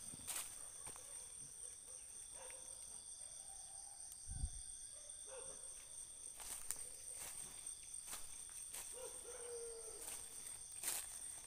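A steady, high-pitched chorus of night insects, with occasional crunches of footsteps on dry leaf litter and a low thump about halfway through.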